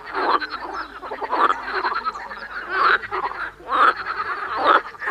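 Frogs croaking: loud pulsed croaks repeating about once a second over a continuous chorus of other frogs.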